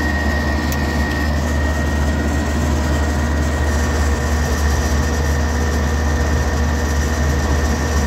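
A 3-ton R22 air-conditioner condensing unit running: the compressor and condenser fan make a steady low hum. The compressor is drawing about 10 amps, well below its limit, so it is running under normal load.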